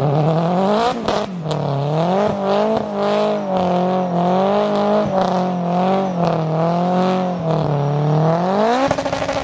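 Mazda RX-7's engine revved hard during a tyre-smoking burnout. The pitch climbs at the start, then swings up and down repeatedly as the revs rise and fall, and climbs again near the end.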